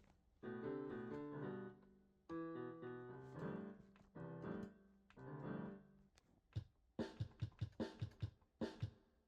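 Background music: electric piano or keyboard chords played in short phrases, then several seconds of short percussive beat hits near the end.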